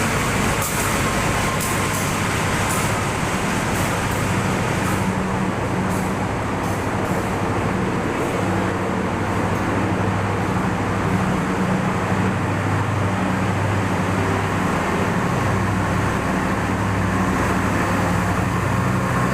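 Train arriving: the diesel locomotive's engine runs with a steady low hum, and a run of sharp clicks sounds during the first few seconds.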